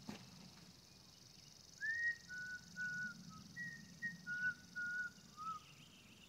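A series of clear whistled notes starting about two seconds in: a rising note, two level notes and a short lower one, then the same phrase again. A steady high hiss runs underneath.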